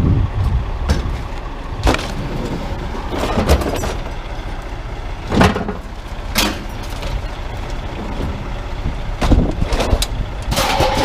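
Scrap being handled and unloaded from a truck: a series of sharp knocks and clanks, a few seconds apart, with a longer clatter near the end, over a steady low rumble of a motor vehicle.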